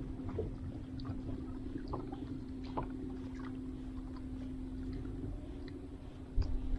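A boat motor running on the water with a steady hum, over scattered small clicks and water sounds. A few low bumps come near the end.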